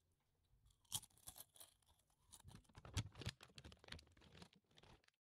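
Doritos tortilla chips crunching as they are chewed, with crinkling from the foil chip bag: a quiet, irregular run of sharp crackles, loudest about a second in and again about three seconds in.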